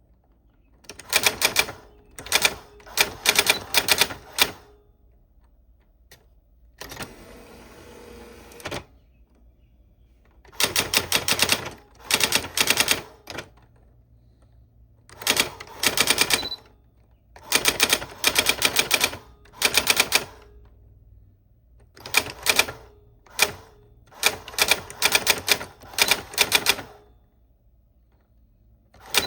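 Old typewriter being typed on: bursts of rapid key strikes, a few seconds each, separated by short pauses. About a quarter of the way in comes a steady rasping sound lasting about two seconds.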